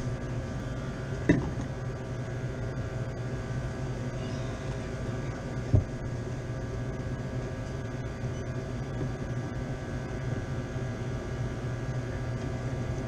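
Sandwich cooler's refrigeration fans running: a steady hum with a low drone and several steady tones above it. Two short knocks, about a second in and near six seconds.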